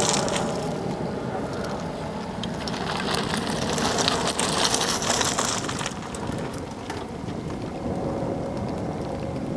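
Wind rushing over the microphone, with a mountain bike passing close by in the middle, its tyres rolling over the gravel shoulder.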